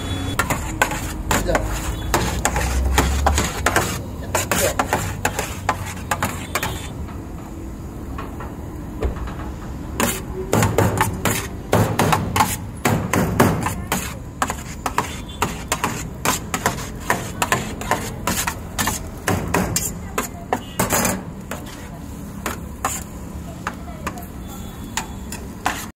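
A metal spatula clattering and scraping on a large steel shawarma tray as shaved chicken is chopped and tossed: quick, irregular metallic clacks, busiest around the middle.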